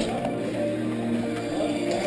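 Background music with held notes that change pitch every half second or so.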